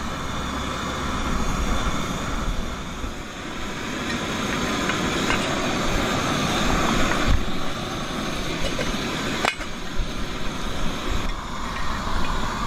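Coleman gasoline camp stove burner running steadily under a covered pot of water heating toward the boil. A single sharp click comes about nine and a half seconds in.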